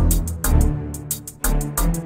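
Background music with a steady beat: regular crisp percussion hits over a bass line.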